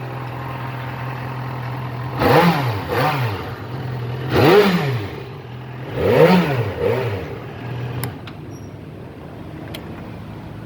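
Yamaha XJ6 Diversion's 600 cc inline-four engine idling, then blipped three times in quick rises and falls of revs, two of the blips followed by a smaller second one. The idle note drops away after about eight seconds.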